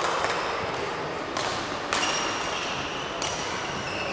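Badminton rally: racket strings striking the shuttlecock, four sharp hits spaced a second or so apart.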